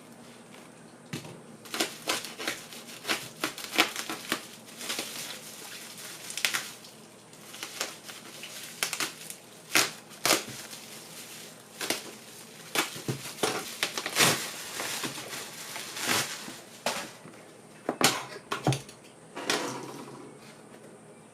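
Packaging being handled and opened: irregular crinkling, rustling and sharp clicks of plastic and cardboard.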